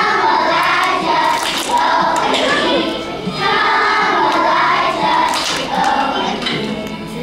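A group of kindergarten-age children singing a song together, in phrases with short breaks.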